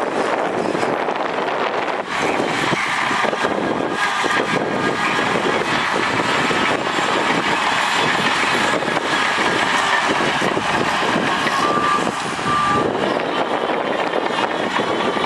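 Heavy diesel earthmoving machinery running and working steadily, with two short high beeps near the end.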